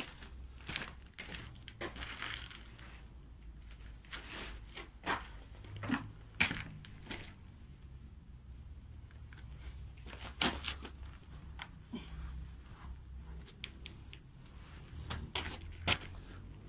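Stone wool insulation slabs being handled and laid on a concrete floor: scattered rustling, scuffs and soft knocks over a low steady rumble.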